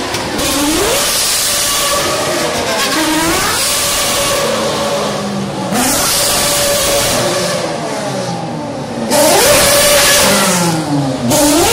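Formula One cars with 2.4-litre V8 engines passing one after another at racing speed, the engine pitch climbing through the gears and dropping as each car goes by, with several louder surges as cars pass closest.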